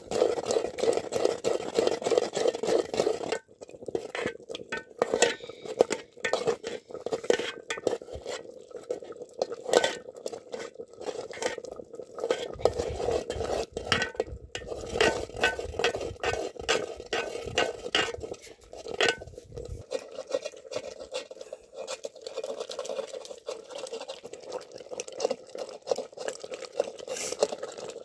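Water pouring into a steaming cooking pot of nettles on a wood fire, followed by many clinks and knocks against the pot as it is stirred and handled.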